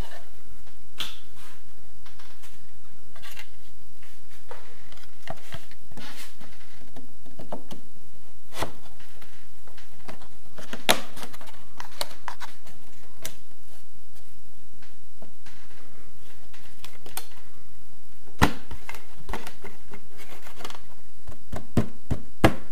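Scattered taps and clicks of a thin window-reveal trim panel being handled and pressed by hand into its mounting strip. The sharpest knocks come about 11 s and 18 s in, with a quick run of clicks near the end.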